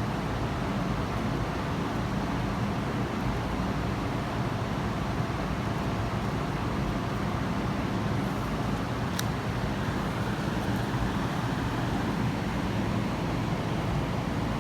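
Steady low background noise, even and unchanging throughout, with one short faint click about nine seconds in.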